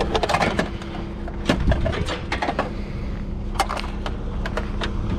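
Scattered clicks, light knocks and rattles of an artificial Christmas tree being handled, with a couple of sharper knocks, over a steady low hum.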